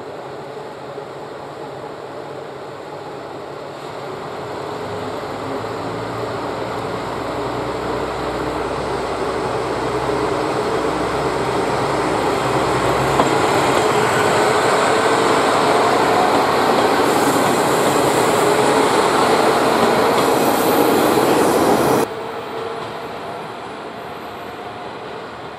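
A JR Kyushu KiHa 125 diesel railcar pulls out and runs past close by, its engine and wheels getting louder as it comes, with a slowly rising whine at its loudest. Near the end the level drops sharply to a fainter train sound.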